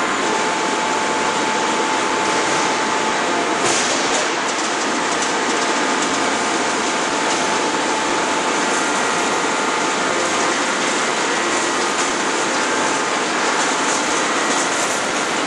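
Steady, loud machinery noise in a forging shop, an even rushing rumble with faint steady tones and no hammer blows.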